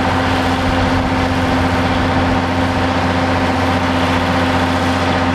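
A heavy-equipment engine running steadily at a constant speed, an even, unchanging drone.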